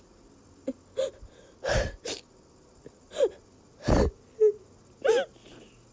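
A person's voice making short breathy gasps and brief squeaky sounds, without words, roughly one every second.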